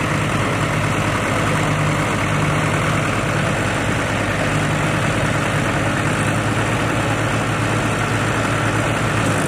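Tractor diesel engines idling steadily: a Kirloskar-engined Mahindra 575 and a Sonalika 60, hitched together but not yet pulling.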